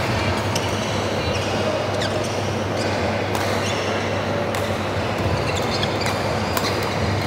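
Badminton play on a wooden court: sharp cracks of rackets striking shuttlecocks, roughly once a second, with short squeaks of shoes on the floor, over a steady low hum of the hall.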